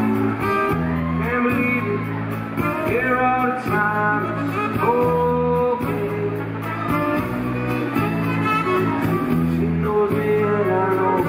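A live rock band playing an instrumental passage: bass guitar, drums and guitars under a lead melody of long held notes.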